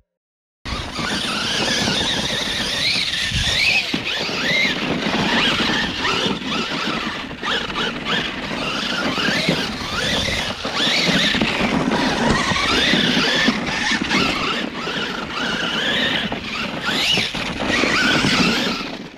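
Losi LMT RC monster truck's electric motor and drivetrain whining, the pitch rising and falling again and again with the throttle, over the noise of tyres on dirt. It starts suddenly about half a second in.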